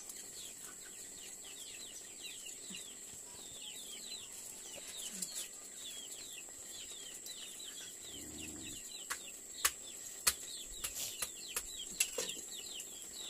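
Chickens peeping: a continuous run of rapid, high, falling peeps, over a steady high-pitched whine. Several sharp clicks come in the second half.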